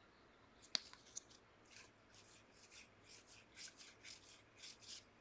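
Faint swishes of trading cards sliding against one another as they are flipped through by hand, in a quick run of about three a second, with one sharp click a little under a second in.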